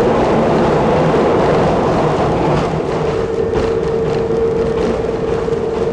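Nanbu Jukan Railway Kiha 10 railbus running along the track: a steady mechanical drone with a constant whine and the rush of wheels on rail, louder for the first couple of seconds and then easing.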